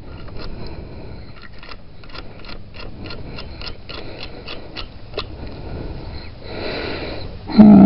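Battery terminal cleaner's wire brush scrubbing a nickel-plated copper battery cable terminal, with short, irregular scraping strokes and a longer stretch of scrubbing near the end.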